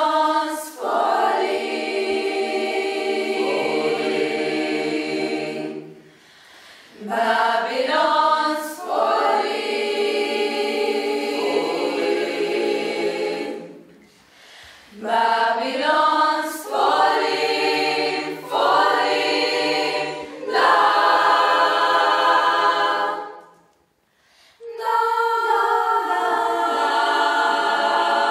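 Mixed choir of girls' and boys' voices singing in harmony. There are four phrases of held chords with brief breaks between them, about 6, 14 and 24 seconds in.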